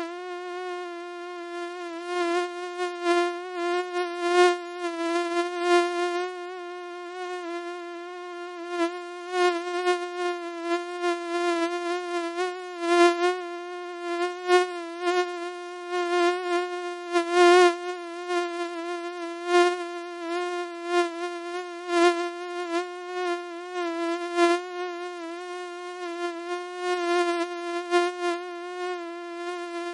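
Mosquito buzzing: a steady, high whine that wavers slightly in pitch and swells and fades in loudness as it goes.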